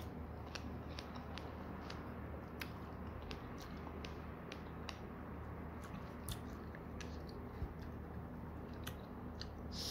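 A person chewing fresh strawberries up close to the microphone: irregular, soft, wet mouth clicks and squishing, over a steady low hum.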